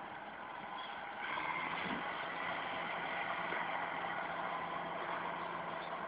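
Caterpillar D8N bulldozer's diesel engine running steadily at a distance, a muffled drone with a low hum that gets louder about a second in.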